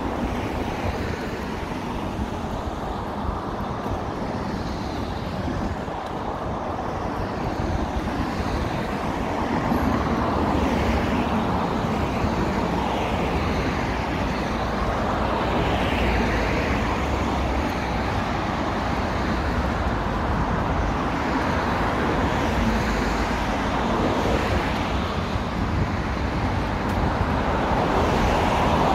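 Steady road traffic noise of cars going by, a continuous hum that grows a little louder about ten seconds in.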